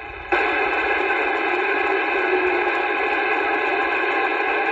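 Anytone AT-6666 radio's speaker putting out a steady, loud static hiss on receive, switching on abruptly a moment in, with no voice coming through.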